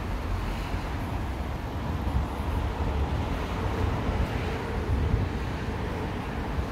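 Steady city street noise: passing road traffic, with a low rumble that stays even throughout.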